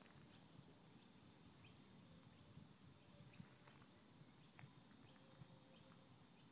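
Near silence: faint outdoor ambience by the water, with scattered faint short ticks and chirps.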